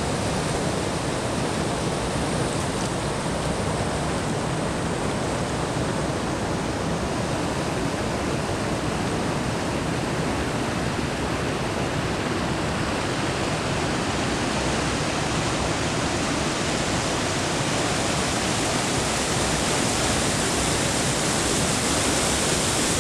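River water rushing steadily, a continuous even noise that grows slightly louder near the end.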